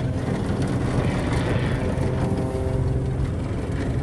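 Zivko Edge 540T aerobatic plane's piston engine and propeller droning steadily overhead, a low even hum with a buzz of overtones.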